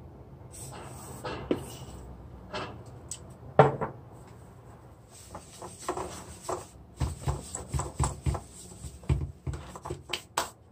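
Hands handling the plastic body of an upside-down LG Roboking VR5906KL robot vacuum as its underside is wiped with a cloth: scattered clicks, taps and rubbing, with a quicker run of knocks in the second half.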